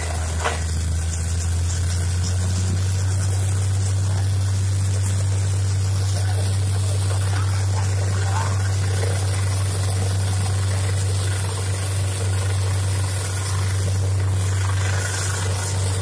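Truck-mounted borewell drilling rig running steadily: a constant low drone from its engine and compressor, with a rushing noise as a slurry of water and rock cuttings is blown out of the borehole, the sign that the bore has struck water.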